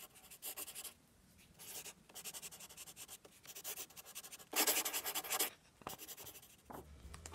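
Rapid scratching strokes, with a louder, longer scrape about four and a half seconds in.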